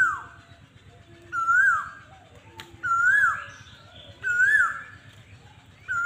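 A bird calling over and over, about every second and a half, about five times. Each call is a clear whistled note that holds, rises slightly and then drops sharply.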